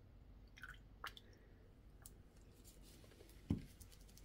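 Very faint drips and small clicks as water is added to a plastic cup of homemade pouring medium, with a soft thump about three and a half seconds in.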